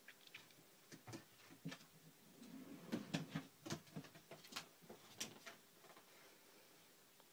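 A cat's claws clicking and scraping on a plastic drawer unit as it climbs, with light knocks against the drawers. The clicks come irregularly and are loudest about three seconds in.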